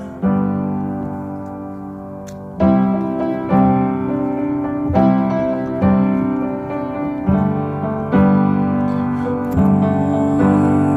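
Instrumental piano passage in a song: a chord held for about two seconds, then chords struck about once a second, without vocals.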